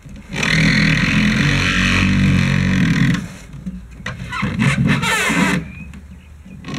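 Wooden pirogue hull sliding over a car's roof-rack bars as it is pushed forward. A long, loud scrape lasts about three seconds, then a few shorter scrapes follow.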